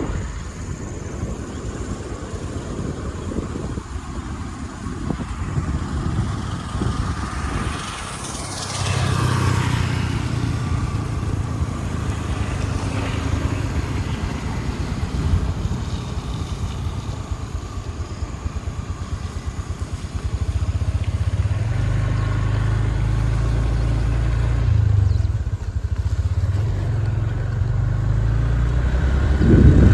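Motorcycle engine running while riding, its low hum rising and falling in steps as the revs change, with wind noise on the microphone.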